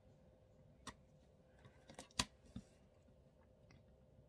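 Faint paper-handling sounds: a few light clicks and taps as washi tape is laid along a planner page and pressed down with the fingers. The sharpest click comes a little past two seconds in.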